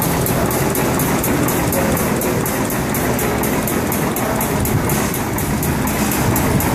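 Large vertical single-cylinder stationary engine running: a fast, even ticking, about five ticks a second, over a steady low hum.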